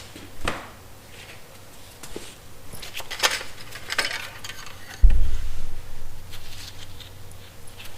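Light clicks and clatter of a John Deere 125 riding mower's oil dipstick being handled in and out of its filler tube during an oil level check, with a dull low thump about five seconds in, the loudest sound.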